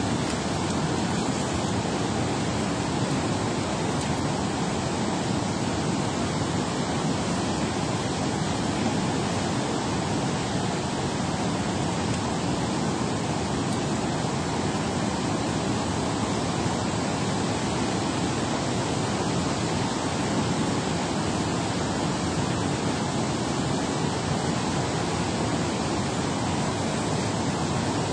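Water rushing out of a dam spillway: a steady, even noise that does not change.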